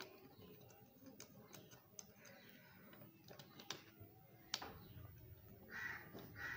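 Faint, scattered clicks and taps of fingers and a copper wire against a switch's brass screw terminals and the plastic switchboard plate as the wire is fitted into the terminal, one click sharper about two-thirds of the way through. Near the end a crow caws twice in the background.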